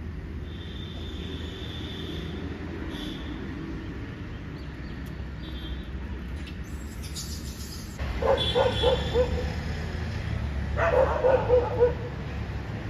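A dog barking in rapid yaps, in two bouts starting about eight seconds in, over a low steady outdoor rumble.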